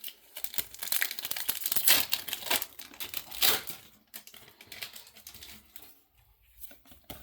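Foil trading-card booster pack wrapper crinkling and tearing open, densest in the first four seconds, then thinning to a few softer crinkles.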